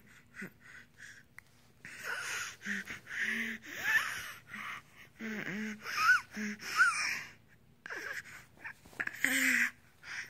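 A small child making breathy wheezing and gasping noises on purpose: a string of hoarse in-and-out breaths with a few short squeaky voice sounds among them.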